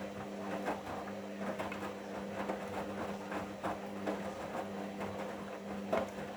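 Hoover washing machine near the end of the main wash: the drum motor runs with a steady hum while the wet load tumbles, with irregular soft knocks and swishes of water.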